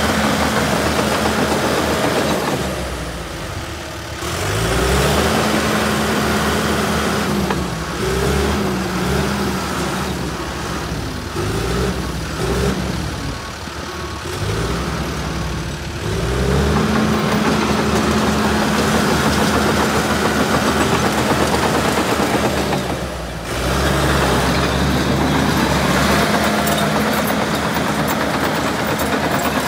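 John Deere 650J LGP crawler dozer's diesel engine running as the dozer drives and turns, its pitch rising and falling again and again with the throttle. It drops to lower, quieter revs around four seconds in and again at about twenty-three seconds.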